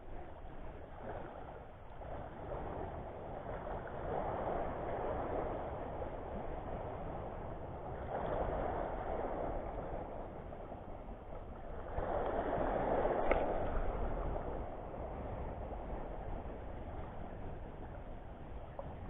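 Small sea waves washing in and out at the water's edge, swelling every few seconds, with one brief click about two-thirds of the way through.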